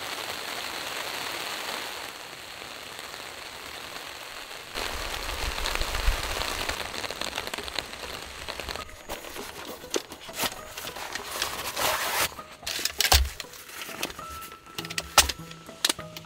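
Heavy rain pouring down in a steady hiss that grows louder about five seconds in, then breaks into sharper scattered drops and taps in the second half.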